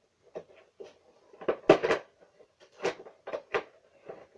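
Cardboard and clear plastic toy box crackling and snapping in irregular bursts as it is handled and pried open, the loudest crackle about one and a half seconds in.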